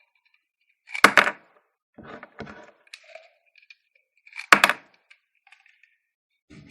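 Plastic clicks and snaps from a Power Rangers Dino Charge Morpher toy being worked by hand: two loud snaps about three and a half seconds apart, with softer clicks and rattles between them.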